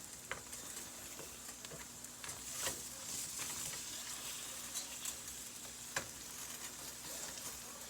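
Eggs frying in butter in a pan, with steak cooking alongside: a steady sizzle with scattered crackling pops.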